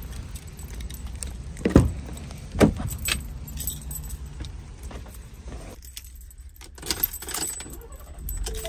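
Car keys jangling on a flip-key fob while a van door is opened and the driver gets in, with two sharp clunks from the door a couple of seconds in and more clicks near the end as the key goes to the ignition. The background rumble drops away about six seconds in.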